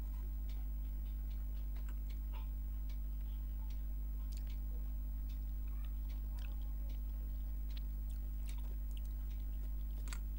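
Small scattered clicks and taps of a serving spoon and fingers against a stainless steel bowl and plate as curry is served and rice is mixed by hand, over a steady low hum. One sharper click comes near the end.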